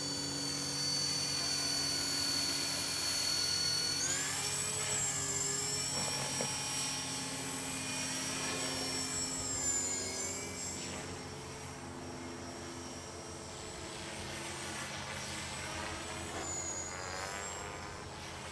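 Electric 450-size Copter X T-Rex 450 RC helicopter in flight: a high whine from the brushless motor and gears, with the hum of the rotor. The pitch is steady at first, jumps up about four seconds in and then wavers up and down as the helicopter is manoeuvred, with another brief rise near the end.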